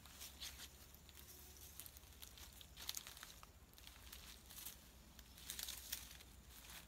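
Faint, irregular rustling and crackling of footsteps through grass and ferns, a little louder about three seconds in and again near the end.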